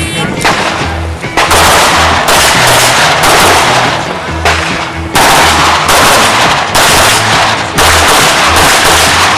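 Rapid pistol fire from an Open-division competition pistol: several fast strings of shots with short pauses between them, over background music.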